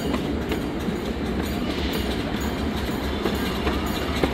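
Miniature railroad train rolling along its track, heard from aboard a passenger car: a steady rumble of the wheels with irregular clicks over the rail joints.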